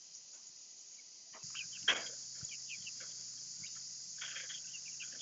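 Steady high-pitched drone of insects, with a sharp tap about two seconds in and scattered short chirps.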